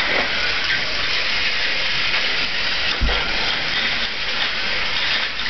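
Battery-powered toy trains running on blue plastic track, a steady whirring hiss. A single low thump about three seconds in.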